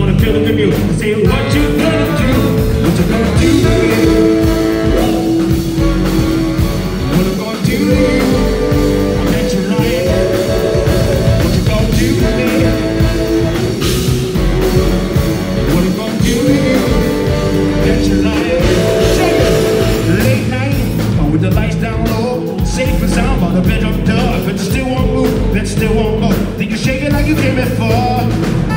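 Live funk-rock band playing loudly: a male vocalist sings over electric bass, electric guitar, drums and saxophone, recorded from the audience.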